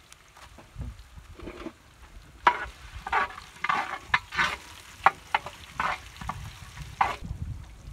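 Metal spoon scraping and stirring whole spices and dried red chillies in a large aluminium pan as they dry-roast: a run of irregular scrapes and rattles, starting about two seconds in and stopping shortly before the end.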